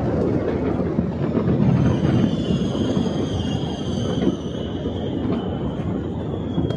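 A dense, steady rumble of many distant New Year's fireworks going off across the city, with scattered sharp cracks. A high, thin whistling tone slowly falls from about two seconds in until near the end.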